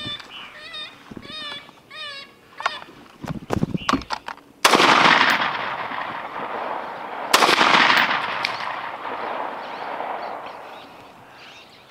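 Two rifle shots from a Ruger MPR 5.56 AR-15-style rifle, about two and a half seconds apart. Each cracks suddenly and rolls off in a long echo lasting a couple of seconds.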